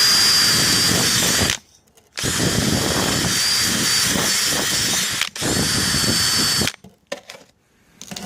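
Handheld power tool running at speed with a steady high whine as it cleans slag off fresh stick welds. It stops about a second and a half in, starts again half a second later, dips briefly, and stops near the end.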